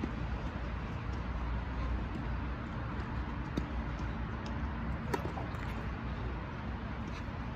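Tennis rally: a handful of sharp pops from rackets striking the ball and the ball bouncing on the hard court, the loudest about five seconds in, over a steady outdoor background rumble.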